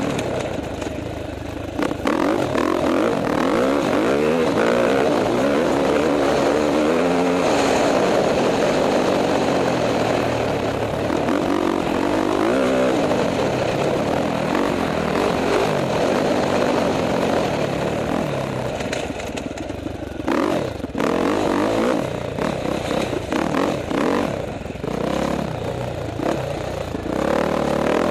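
KTM 450 XC-F single-cylinder four-stroke dirt bike engine, heard from the bike itself as it is ridden round a dirt track. It revs up and down through the gears, with choppier on-off throttle in the last third.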